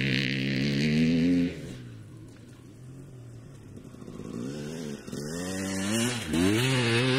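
Off-road motorcycle engine revving: loud and climbing for about a second and a half, then dropping away to a quieter running, then a series of rising revs near the end.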